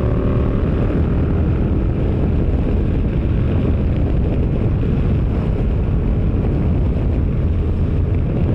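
Yamaha MT-07's parallel-twin engine and exhaust running steadily while riding at speed, mixed with heavy wind rumble on the microphone; a faint engine note near the start soon sinks into the rumble.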